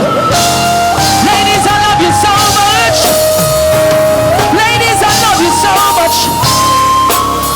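Live reggae band playing: a held lead melody stepping from note to note over bass and drums, with voices singing in places.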